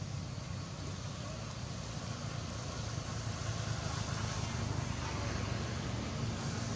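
Steady low hum of a running engine over even background noise, growing slightly louder near the end.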